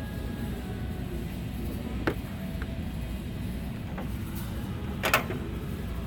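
Shop-floor ambience: a steady low hum with a few sharp clicks and knocks, the loudest about five seconds in.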